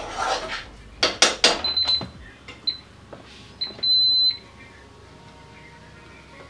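Geek RoboCook electric pressure cooker lid being turned and unlocked, with clicks and knocks from the lid about a second in. The cooker then gives a few short high beeps and one longer beep about four seconds in, the loudest sound.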